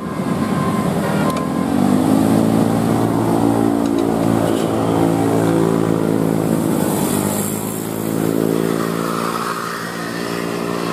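Bus engine accelerating, its pitch rising over the first couple of seconds, then holding steady and easing off near the end.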